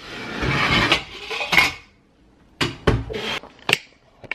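Large stainless-steel stockpot of turkey brine being handled on a granite countertop: about a second of rushing scrape, a bright metal clank about one and a half seconds in, then a cluster of knocks and clunks near the end.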